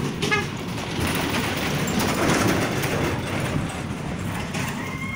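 A motor vehicle passing on a gravel road, its running and tyre noise swelling to a peak about two seconds in and then fading.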